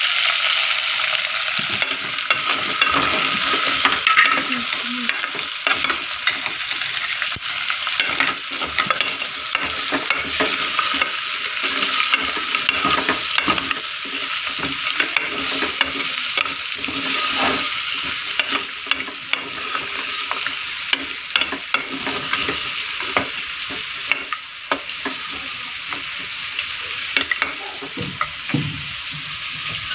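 Mutton pieces sizzling as they fry in oil in a pressure cooker, with a steel ladle scraping and clinking against the pot as it stirs them. The sizzle is a steady hiss, broken by frequent short scrapes and knocks of the ladle.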